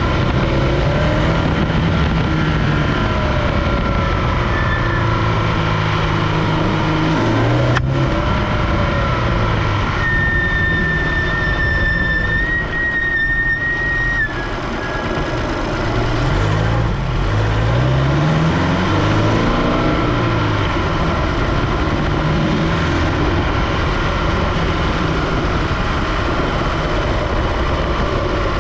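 Supercharged Scion FR-S's 2.0 L flat-four heard from the engine bay, running with the revs stepping and sweeping up and down. A high steady whistle sounds over it for about four seconds midway. Somewhere in this sound is the owner's unexplained noise, which comes with engine load.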